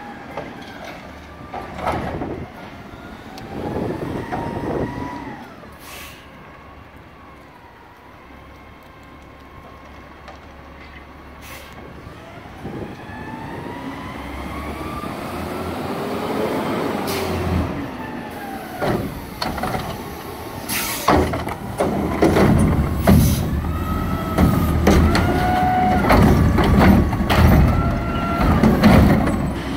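Peterbilt garbage truck with a McNeilus front-loader body working: engine revving and hydraulics whining in gliding pitches as the forks lift and lower, with scattered clanks and hisses. Louder and busier in the second half as the truck pulls up close, with more revs, whines and metal clanks.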